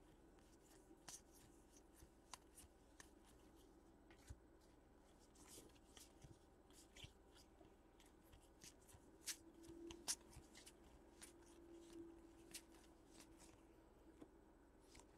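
Faint flicks and rustles of baseball trading cards being handled and leafed through, with scattered soft clicks and a couple of slightly sharper ones about nine and ten seconds in.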